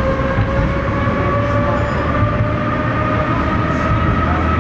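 Vintage tram running, heard from inside the passenger car: its traction motors whine in a tone that climbs slowly in pitch as the tram gathers speed, over a steady low rumble of the wheels on the track.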